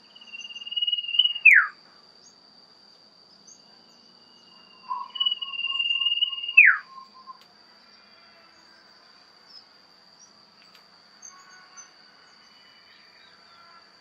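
A caged common iora (cipoh) sings two long, high, level whistles, each ending in a quick downward slide. The second whistle comes with a short run of rapid lower notes. A steady high insect trill runs underneath, and a few faint chirps follow near the end.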